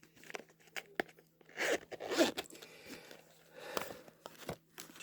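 A zippered Bible cover being handled and opened: rustling and scraping with small clicks, and a few short noisy strokes about one and a half and two seconds in.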